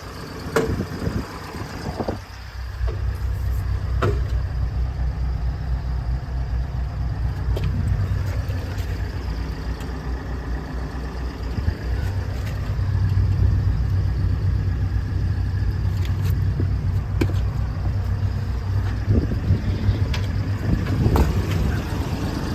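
Diesel engine of a JCB JS160LC tracked excavator running steadily, getting louder a couple of seconds in and again about halfway through, with occasional short knocks and clicks.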